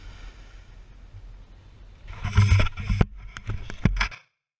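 Handling noise from an action camera being picked up and moved: a cluster of loud knocks and rubbing on the microphone lasting about two seconds, after a low steady background noise. It stops abruptly near the end.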